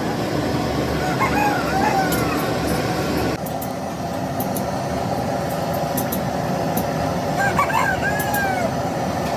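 Steady workshop background noise. A bird calls twice in the background, each a short run of rising-and-falling notes, about a second in and again near the end.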